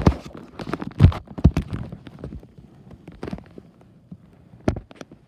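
Irregular knocks, bumps and rubbing from a phone being handled and turned over, hands and fabric brushing against its microphone. The loudest knocks come about a second in and again near the end.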